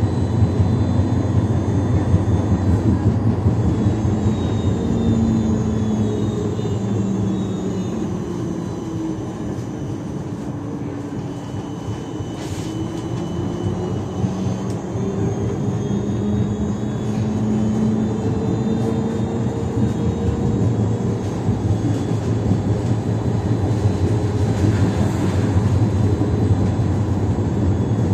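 Siemens Combino Plus tram running, with its traction motors whining over a low rumble of wheels on rail. The whine falls in pitch as the tram slows, and the running gets quieter midway, then climbs again as it picks up speed.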